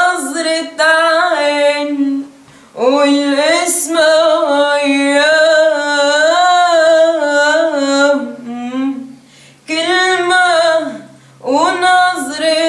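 A teenage girl's voice singing an Arabic song unaccompanied, in long ornamented phrases whose pitch bends and wavers, with short breaths between them.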